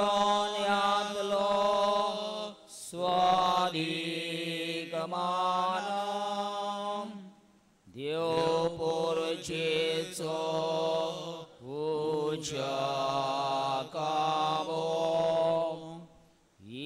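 Slow devotional chant: a voice singing long held notes in four phrases of three to four seconds, most starting with an upward slide, with short breaks between them.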